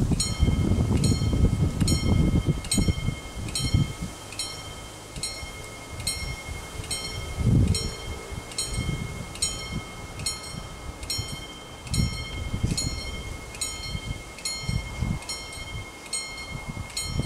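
Italian railway level crossing warning bell starting up and ringing in a fast, even series of strokes, about two and a half a second, over a steady tone: the crossing is signalling an approaching train. Wind rumbles on the microphone in the first few seconds.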